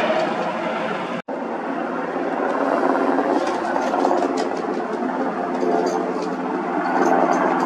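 Black Hawk firefighting helicopter flying overhead: steady rotor chop and engine noise, briefly cut out for an instant about a second in.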